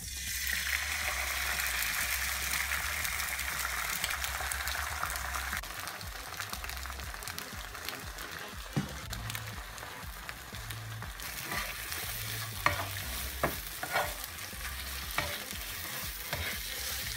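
Egg whites sizzling in a hot frying pan as they are poured in, the sizzle loudest for the first five seconds or so and then settling lower. In the second half a spatula scrapes and taps against the pan as the egg is pushed and turned.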